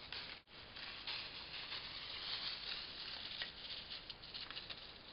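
Dry fallen leaves rustling under a West Highland White Terrier puppy's paws as it runs about, a steady rustle with many small crackles. The sound drops out for an instant about half a second in.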